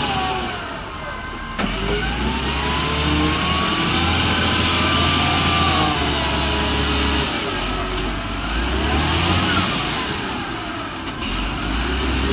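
Hydraulic excavator working: its diesel engine runs steadily under load, and a whine rises and falls again and again as the hydraulics are worked.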